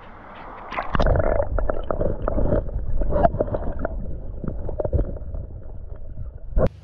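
Water heard through a camera microphone submerged in a creek: muffled gurgling and rumbling with many small knocks. It starts loudly about a second in and cuts off sharply near the end.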